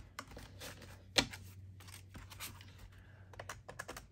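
Plastic keys of a desktop calculator being pressed to enter a sum: short clicks, with one louder knock about a second in and a quick run of key presses near the end.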